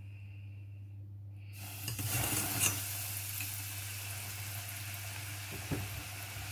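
Flour-coated chicken pieces going into hot oil about a second and a half in, after which the oil fries them with a steady sizzle.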